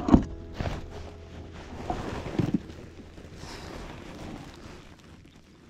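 Knocks and rustling of handling on a plastic kayak, with wind on the microphone. A few sharp knocks come near the start and again about two seconds in, then it quietens.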